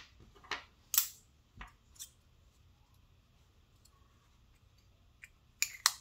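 Sharp metallic clicks of small steel multitool pieces with built-in magnets being handled and snapped together: four clicks in the first two seconds, then a quick pair near the end as the knife module is worked.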